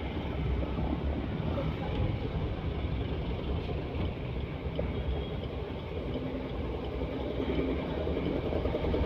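Steady vehicle rumble and road noise, with no clear breaks.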